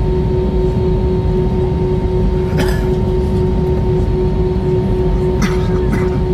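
Cabin noise of an Airbus A321 taxiing, heard from a window seat: a steady low rumble of the engines and rolling gear with a constant hum. A couple of short rattles or clinks break through, about a third of the way in and near the end.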